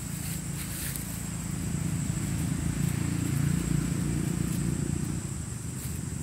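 Low engine rumble of a passing motor vehicle, growing louder to a peak about three and a half seconds in and then fading away, with a thin steady high-pitched whine throughout.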